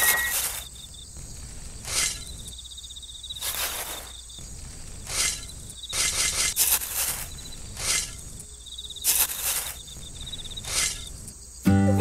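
Sand scooped with a tiny shovel and poured into a toy trailer: a short gritty hiss about every one and a half seconds, eight or so in all. A steady high insect trill runs underneath, and music comes in just before the end.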